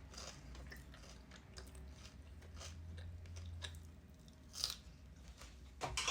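Close-up crunchy bites and chewing of a grilled sandwich with a crisp, buttered toasted crust, with a louder crunch about four and a half seconds in and again near the end.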